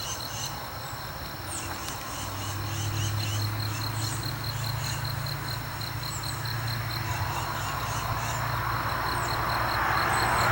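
Insects chirping in fast, evenly pulsed trills. A steady low hum joins about two seconds in, and a rushing noise swells near the end.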